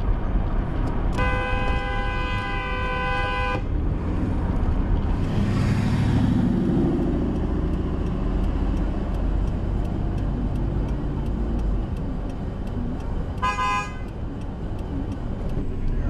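A car horn blares for about two and a half seconds, then gives a short toot again about ten seconds later, over steady road and engine noise heard from inside a car.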